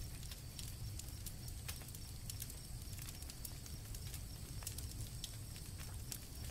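Campfire crackling in short irregular snaps over a low steady rumble, with crickets trilling steadily in the background.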